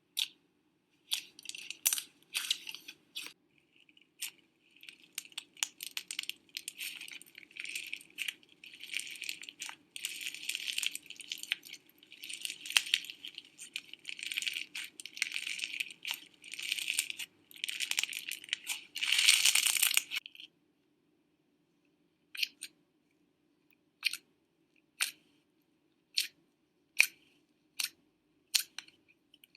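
Slime being squeezed and poked, a dense run of crackling and popping for about twenty seconds, then single sharp pops roughly once a second.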